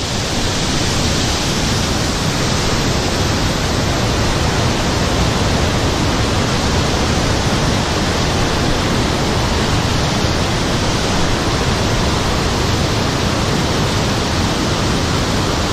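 Steady, loud rush of river water running over rapids, an even hiss with no change throughout.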